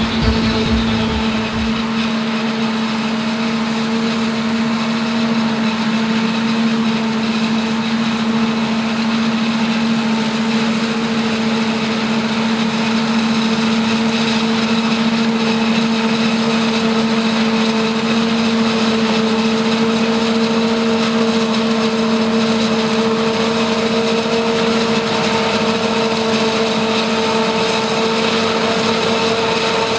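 New Holland FR9060 self-propelled forage harvester chopping standing maize through its Kemper 460 header, running at a steady working pitch with a constant hum, together with the engine of the tipper truck driving alongside to take the chopped crop.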